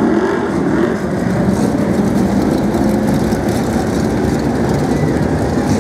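Several Brisca F1 stock cars' V8 engines running together as the cars circulate the track, a loud, steady mass of engine noise.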